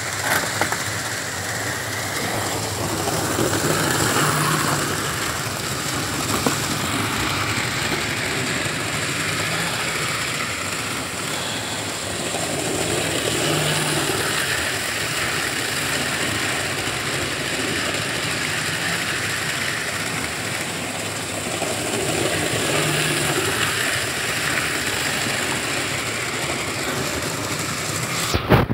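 Model train, a model Class 47 diesel locomotive hauling Mk3 coaches, running on a layout: a steady whir and rattle of motor and wheels on the track, swelling every nine or ten seconds as the train comes round close.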